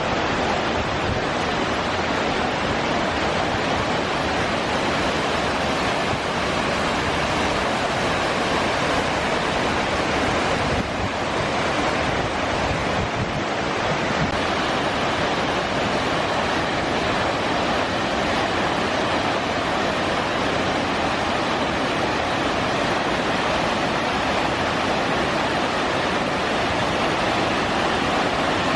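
Water rushing steadily over Fukiware Falls, a waterfall: a constant, even noise.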